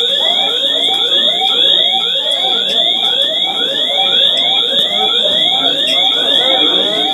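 School fire alarm sounding for a fire drill: a steady high-pitched tone over a rising sweep that repeats about twice a second.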